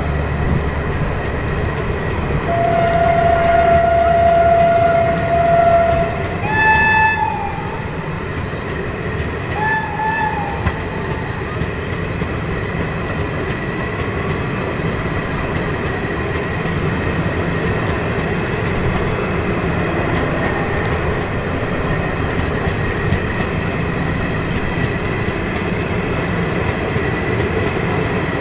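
WAP-5 electric locomotive horn: a steady blast of about three seconds, then two shorter, higher blasts, the second about three seconds after the first. The steady running noise of the train follows.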